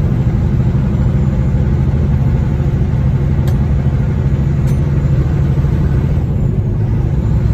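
Truck engine and road noise heard from inside the cab while cruising on the highway, a steady low drone. Two small clicks come a little over a second apart near the middle.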